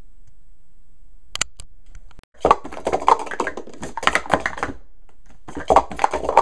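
Hard plastic Speed Stacks cups clattering rapidly as they are stacked up and brought down at speed in a 3-6-3 sequence. There are two dense runs of quick knocks with a short pause between them, led in by a few sharp clicks about a second and a half in.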